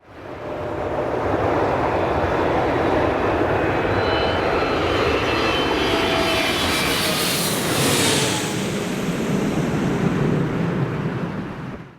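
Jet engines of a Boeing 747-400, four GE CF6-80C2B1F turbofans, running as the airliner comes in to land: a steady rushing jet noise with faint whining fan tones. A high hiss grows strongest about eight seconds in.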